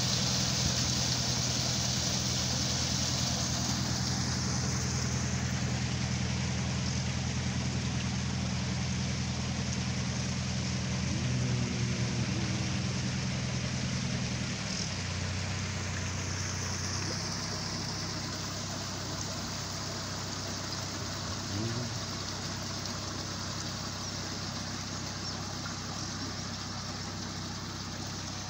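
Narrowboat engine idling in a filling canal lock, over the rush of water pouring through the open gate paddles. The engine's note steps down twice, just past halfway through and again a couple of seconds later.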